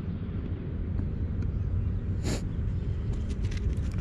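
Wind buffeting the camera microphone, a steady low rumble, with a short hiss a little past halfway and a few faint clicks near the end.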